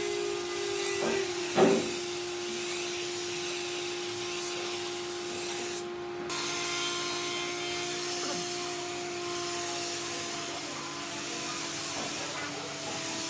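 A small motor runs steadily with a hum and a hiss. There is a sharp knock about a second and a half in.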